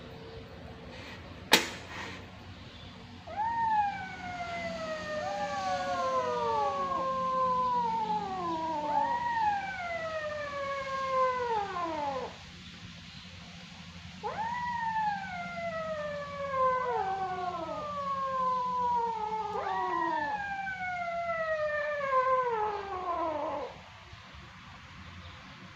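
Young kittens mewing over and over, their cries overlapping, each call starting high and sliding down in pitch. A single sharp click about a second and a half in.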